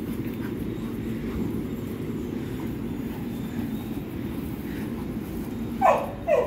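A steady low rumble runs through. Near the end a dog gives two short yelps that fall in pitch while playing.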